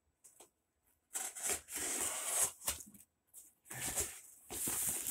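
Knife slitting the packing tape on a cardboard box: one long cut about a second in, then two shorter ones near the end.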